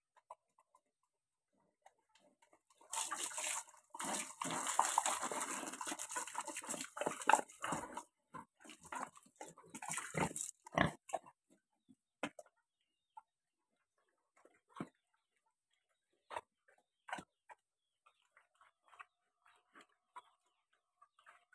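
Pigs at a concrete trough. For several seconds there is a noisy, splashing stretch as water is poured into the trough while a pig feeds, followed by scattered short grunts, snuffles and knocks.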